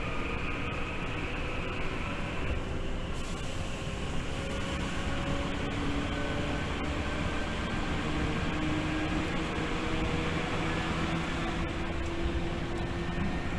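Tokyu 8500 series electric train running at speed, heard from inside the car: a steady wheel-and-rail rumble with the traction motors' whine climbing slowly in pitch as the train gathers speed.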